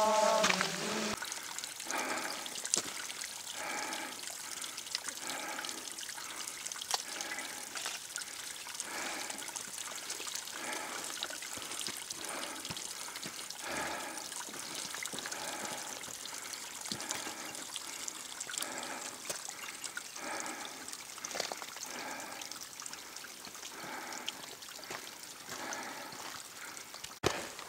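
Footsteps walking at a steady pace, about one and a half a second, on a wet, stony and muddy forest trail, with water trickling.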